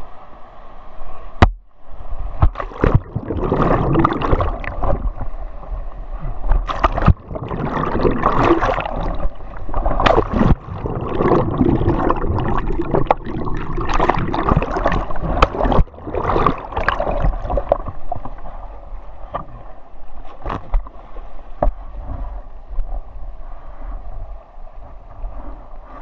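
Whitewater rapid churning around a kayak, with the water washing over and under the camera. Loud rushing and gurgling water with many sharp splashes and knocks through the first two thirds, then quieter steady rushing near the end.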